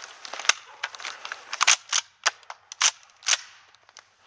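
Airsoft replica gunfire: about eight sharp pops at irregular spacing, then quieter near the end.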